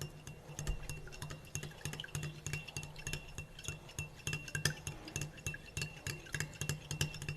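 A metal spoon stirring honey into onion water in a glass, clinking against the glass in quick, irregular taps.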